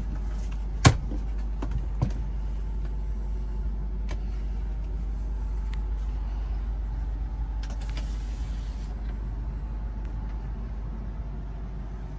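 Steady low hum inside a sleeper train's couchette compartment. The compartment door clicks sharply about a second in, with a lighter knock about a second later.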